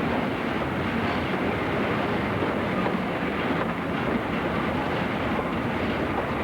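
Steam-hauled train running on the rails, a steady even noise of the train in motion.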